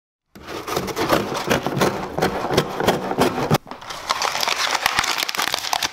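Dense crackling and crinkling from a channel-intro sound effect, starting suddenly a moment in and breaking off briefly about three and a half seconds in before carrying on.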